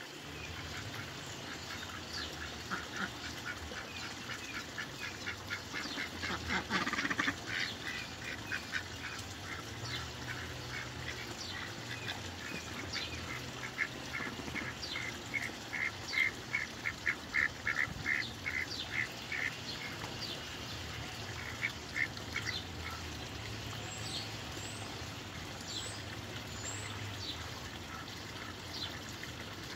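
Rouen ducks quacking in runs of rapid short calls, several calls a second, the longest and loudest run in the middle.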